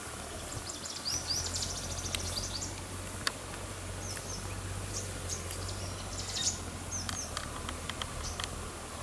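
Wild birds calling in scrubland: short high chirps and quick twittering trills, twice in longer runs, over a steady low hum.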